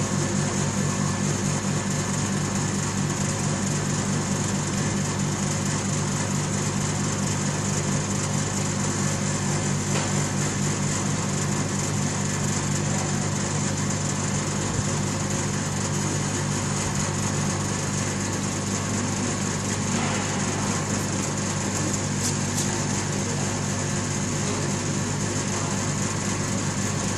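Oil-sealed vacuum pump running steadily, pulling the furnace chamber down to about −0.1 MPa on the gauge.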